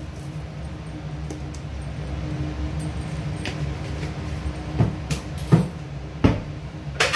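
Steady low hum, with four sharp clunks of kitchen things being handled in the second half.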